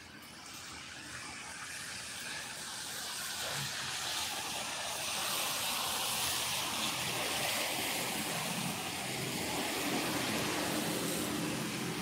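Tyres hissing on a wet road as a vehicle approaches and passes slowly, the hiss swelling over the first few seconds and holding before easing slightly near the end.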